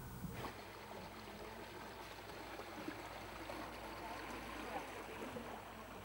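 Canal water lapping and splashing around a small boat, with faint distant voices now and then.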